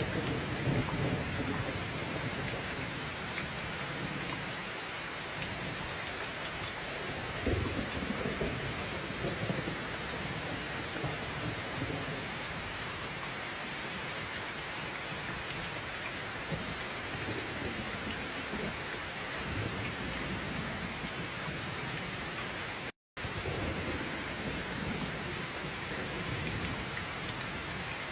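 Steady heavy rain with low rolling rumbles of thunder, one near the start and another about a quarter of the way in. About four-fifths of the way through, the sound cuts out completely for a split second, then resumes.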